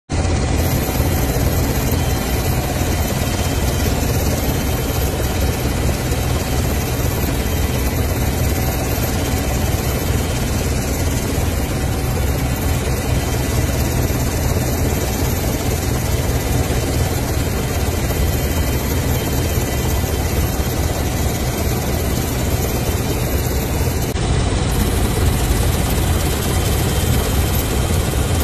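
Helicopter in flight, heard from inside the cabin: a loud, steady rotor and engine noise with a low rumble and a faint steady whine. The low rumble gets heavier near the end.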